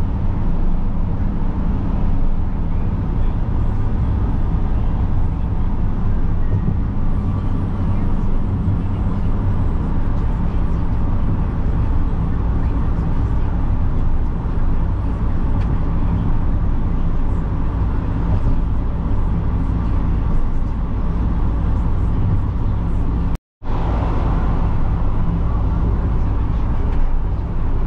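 Steady in-cab road noise of a U-Haul truck at highway speed: a constant low engine and drivetrain drone with tyre and wind hiss. Near the end the sound drops out completely for an instant.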